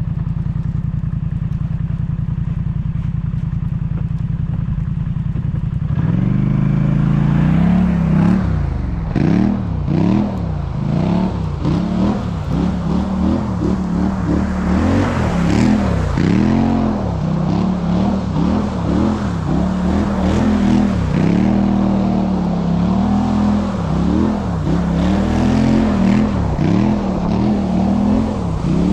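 A four-wheeler's engine idles steadily, then from about six seconds in revs up and down over and over as the ATV slides in circles on the snow.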